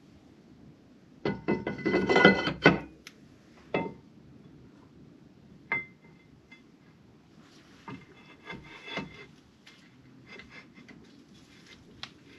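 Cast-iron brake disc being slid onto the wheel hub and its studs: a loud clattering scrape with a brief metallic ring, then single knocks. After that come quieter clicks and rubbing as parts behind the disc are handled.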